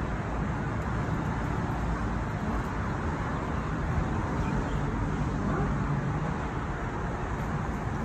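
Steady city traffic noise, an even wash of sound with no distinct events standing out.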